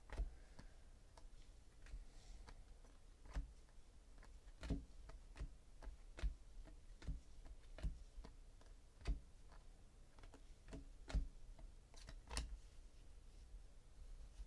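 Quiet, irregular clicks and taps of 2017 Donruss Optic baseball cards being flipped through one at a time in the hands, about one every second.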